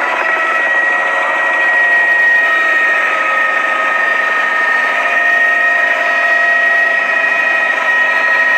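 Helicopter engine and rotor noise heard from inside the cabin in flight: a steady high whine made of several held tones over a constant rushing noise.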